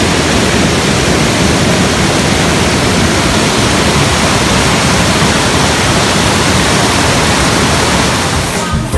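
Loud, steady rush of falling water, like a small waterfall heard close up. It dips slightly just before the end.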